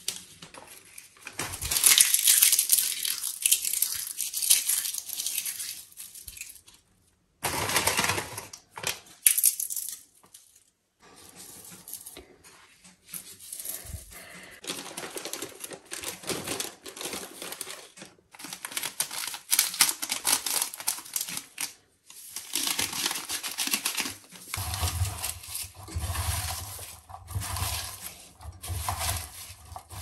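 Plastic spice packets rustling and crinkling in bursts, with short pauses, as they are handled and emptied over a pot. Near the end, hands mix sliced onion with the seasoning in an enamel pot, over a low steady hum.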